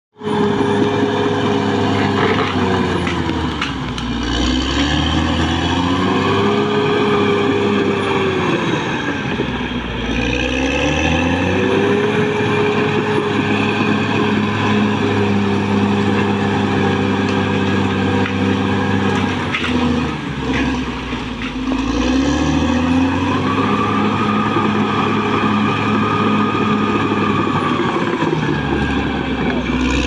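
Caterpillar D6R XL bulldozer's diesel engine running hard as the machine pushes through brush and debris. The engine note dips and climbs back up three times, about four, ten and twenty-one seconds in.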